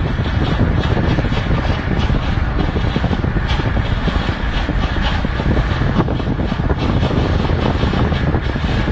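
Loud, steady rumble of road and wind noise heard from inside a moving car.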